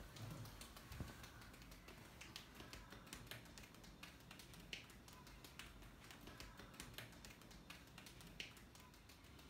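Faint, irregular soft taps and pats of children's hands striking a man's back and legs in a pounding massage, about one or two a second against near silence.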